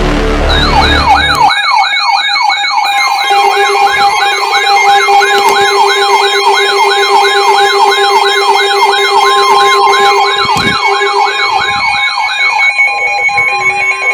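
Electronic siren yelping: a quick rising sweep repeated about two and a half times a second over steady electronic tones, stopping about a second and a half before the end. A low rumble sounds under it for the first second and a half.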